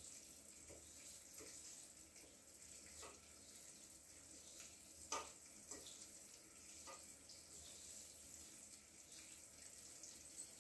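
Near silence: a faint steady hiss with a few soft clicks, the strongest about five seconds in, as hands rub ghee into flour in a steel bowl.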